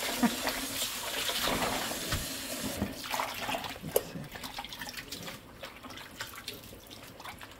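Water splashing and sloshing as blanched spinach is swished by hand in a bowl of water and lifted into a stainless mesh colander, rinsing sand out of the leaves. The splashing grows quieter after about three seconds, leaving scattered small splashes.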